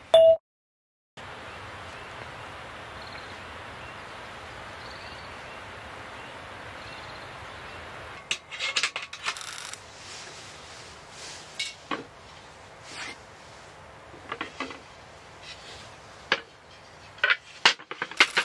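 A steady, even hiss for the first several seconds, then a string of irregular wooden and metal clicks and knocks as the parts of a wooden-slat camp table and its gas burner are handled and fitted together.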